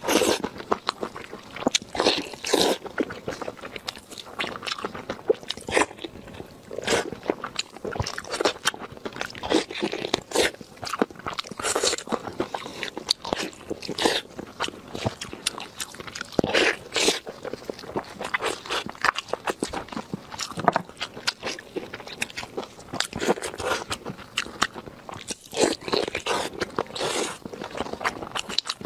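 Close-miked eating of saucy braised meat: irregular bites, wet chewing and lip smacks with sharp clicking noises in between.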